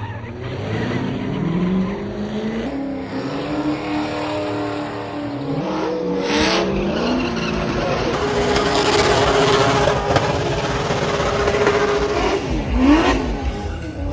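Car engine revving hard with tires squealing, as in a burnout or drifting. The engine's pitch swings up and down again and again, with a quick drop and rise near the end.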